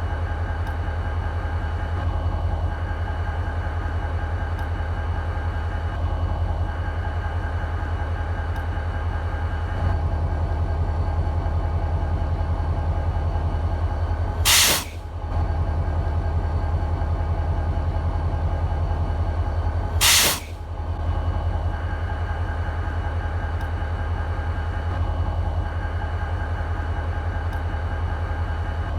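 EMD 16-cylinder two-stroke diesel of a BNSF SD40-2 locomotive idling steadily, with a deep, even pulsing drone. Twice, about five seconds apart, a short, loud hiss cuts in over it.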